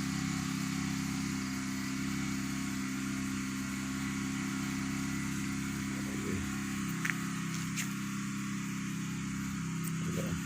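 Steady mechanical hum of a running motor, unchanging throughout, with two faint clicks about seven and eight seconds in.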